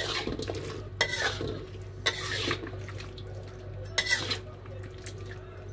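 A metal wok spatula scraping and stirring chicken wings around a metal wok, four scraping strokes over about four seconds, over a steady low hum.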